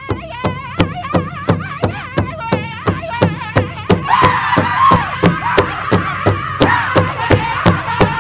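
Powwow drum group singing a men's chicken dance song over a steady drumbeat of about three strokes a second on the big drum. The high, wavering singing grows louder and fuller about four seconds in.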